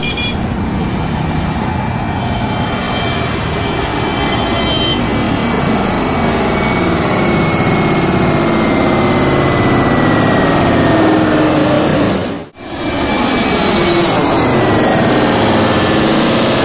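Twin-jet airliners passing low overhead on landing approach: the IndiGo Airbus A320-family jet's engines make a steady jet noise with a whine that slides slowly down in pitch as it goes over. After a short break about twelve seconds in, a second airliner passes overhead with the same falling whine.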